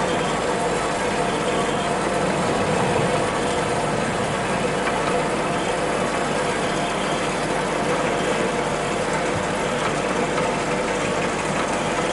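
Cosen SH-460M three-phase metal-cutting bandsaw running steadily, its blade cutting through stock as the bow descends under hydraulic feed.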